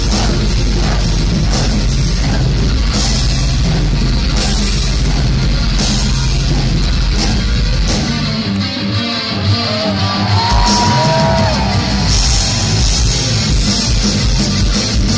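Heavy metal band playing live, heard from within the crowd: distorted electric guitars, bass and drums with cymbals. About eight seconds in, the drums and cymbals drop out for a few seconds, leaving a few held, bending notes, before the full band comes back in.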